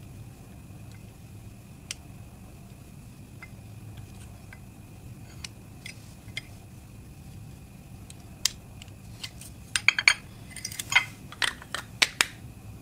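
Knife slicing lipstick, with occasional light ticks as discs drop into ceramic bowls, over a steady low hum. From about eight seconds in comes a quick run of sharp, louder clicks and taps as the lipstick and tubes are handled over the bowls.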